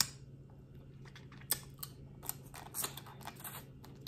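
Crawfish shells cracking and crackling as they are broken open and peeled by hand: a sharp crack at the start, then scattered snaps and a short run of crinkly crackles in the middle.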